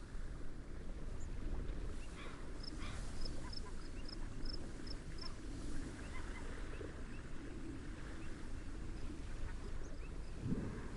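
Seaside nature ambience: a steady low rush of wind and waves, with scattered bird calls over it. A few seconds in, a run of about eight short, high chirps.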